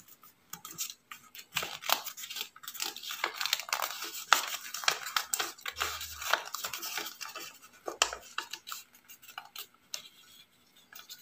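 A sheet of paper pattern rustling and crackling as it is folded and creased by hand: a run of quick, irregular crinkles that thin out near the end.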